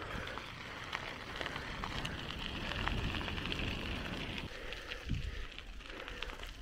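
Bicycle being ridden uphill: crackling rolling noise of the tyres on the path, with wind rumbling on the microphone in gusts.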